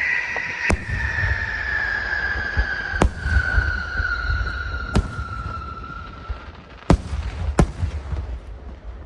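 Large aerial fireworks going off: a long whistle that slowly falls in pitch for about six seconds, about five sharp bangs of shells bursting, and a steady low rumble of booms underneath.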